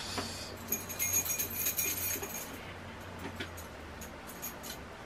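Flour being shaken in a lidded plastic container to mix two breading flours, a soft rattling swish for a couple of seconds near the start, fading out after that.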